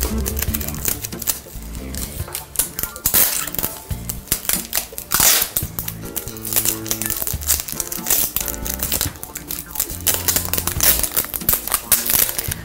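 Background music with slow, held low notes, over crinkling and rustling handling noises as bundled cotton cords are worked and bound with adhesive tape. Several sharp crinkles stand out, one about three seconds in and one about five seconds in.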